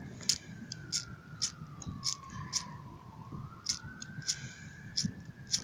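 An emergency-vehicle siren wailing slowly, its pitch falling over about three seconds and then rising again, under scattered sharp cracks and pops of fireworks.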